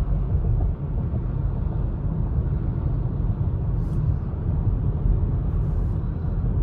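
Steady low rumble of a car driving at highway speed, heard from inside the cabin: tyre and engine noise.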